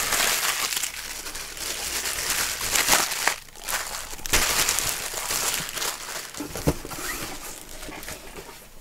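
Clear plastic packaging bag crinkling and rustling as it is handled and opened, in irregular surges, with one sharp click about two-thirds of the way in.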